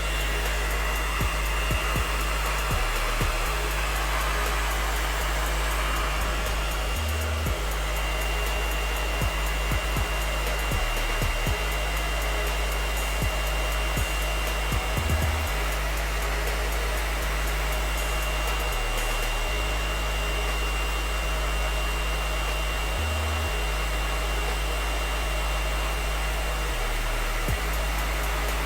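Hair dryer running steadily with a thin high whine over its rushing air, heating an adhesive rubber grip wrap so it conforms to a pistol frame.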